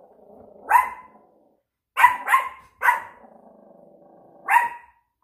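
Small dogs alert-barking out of a window: five short, sharp barks, three of them close together in the middle, with a faint low growl in the gaps between them.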